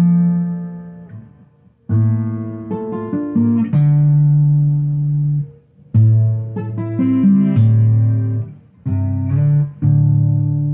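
Solo acoustic guitar played in short phrases of plucked chords, each ringing out with a brief pause before the next. This is the instrumental opening of a song, before the singing comes in.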